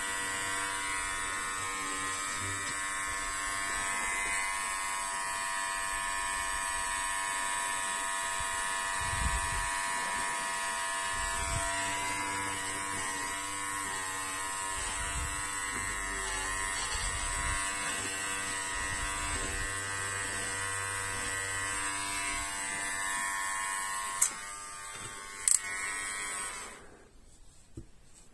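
Small electric hair trimmer buzzing steadily as it cuts a doll's hair. Near the end come two sharp clicks, then the buzz stops.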